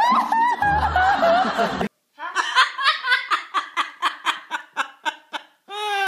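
A young man's high-pitched, dolphin-like laugh: a fast run of short squeaking bursts, about four or five a second, lasting a few seconds. Before it, voices over background music.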